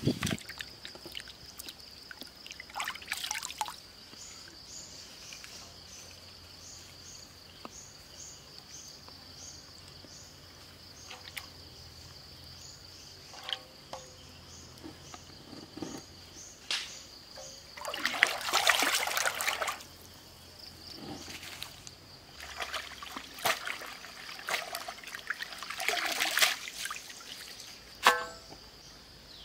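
Water splashing and trickling in irregular bursts as a wok and vegetables are washed by hand in a shallow stream, the longest splashing about 18 to 20 seconds in. A steady high-pitched tone runs underneath, with a row of short chirps above it through the first half.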